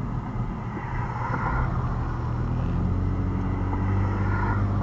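Car engine and road noise heard from inside the cabin while driving slowly, a steady low hum that grows a little louder and higher from about halfway through as the car picks up speed.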